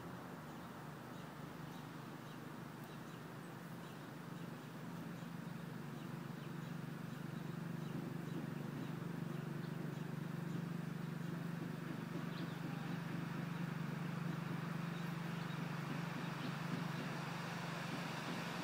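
A steady low engine hum, growing somewhat louder about five seconds in and then holding even.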